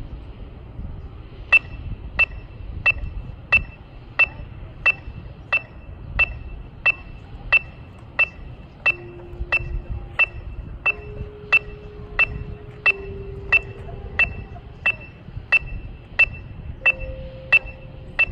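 Electronic metronome amplified over a speaker, clicking a steady beat of about 90 per minute, a bright, ringing click that starts about a second and a half in.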